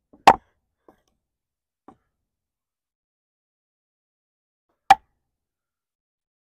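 A wooden baton knocks sharply twice on the spine of a Takumitak Solution D2-steel tanto fixed-blade knife, driving it down through a log: one blow just after the start and another about four and a half seconds later, with two faint taps in between.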